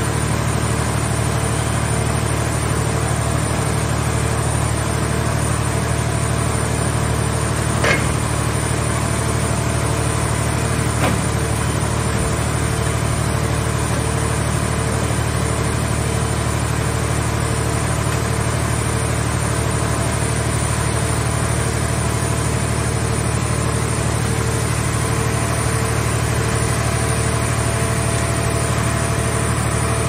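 Mobile scrap car-shell baler's power unit and hydraulics running steadily with a constant low hum while its grapple crane works, with two short knocks, one about a quarter of the way in and one a few seconds later.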